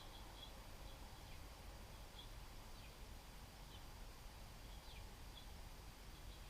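Faint short chip notes from small songbirds, scattered irregularly every half second to a second, a few of them quick downward-sliding calls, over a steady low background rumble.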